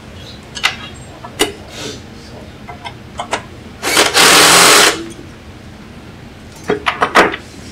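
Scattered metallic clicks and clacks from hands working the arms and blade clamps of a DeWalt DW788 scroll saw, with a quick cluster of clicks near the end. About four seconds in, a loud burst of rushing noise lasts about a second.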